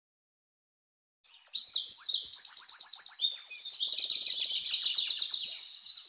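A songbird singing a fast, continuous stream of high chirps and trills, starting about a second in.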